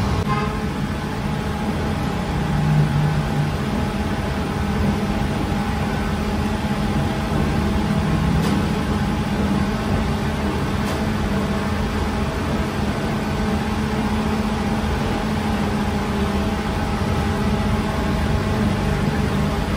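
Steady machinery drone and hum of bakery equipment running, with a few faint clicks.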